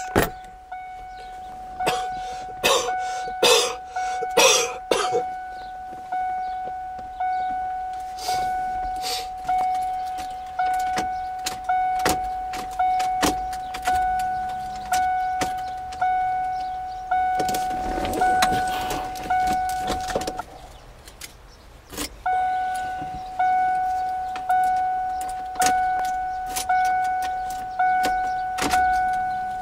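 Ford Bronco's key-reminder bell dinging about once a second, each ding a single tone that fades away, stopping briefly about twenty seconds in. Sharp clicks and knocks sound over it, mostly in the first few seconds.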